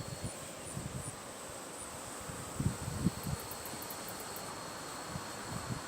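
Insects buzzing steadily in a high thin drone, with a short burst of rapid high ticking about three seconds in. A few low thumps on the microphone come around the middle.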